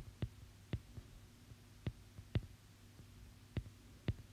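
About seven light, sharp clicks at uneven intervals, a stylus tapping on a tablet's glass screen, over a faint steady low hum.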